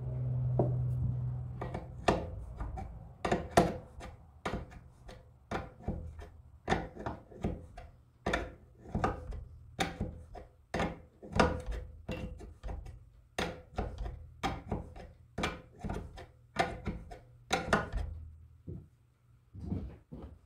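A wrench working the 20 mm line fittings on a transmission thermostat block held in a bench vise: a long run of sharp metallic clicks, about two a second, stopping near the end. A low hum is heard in the first second or so.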